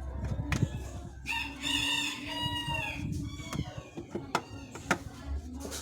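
A rooster crowing once, a drawn-out call starting about a second in and lasting about two seconds, with scattered sharp clicks around it.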